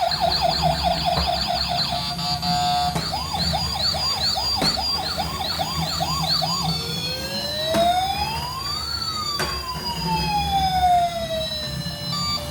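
Toy ambulance's electronic siren sound effect, moving through its modes: a fast yelp, then a slower warble from about three seconds in, then a slow wail that rises and falls once from about seven seconds in.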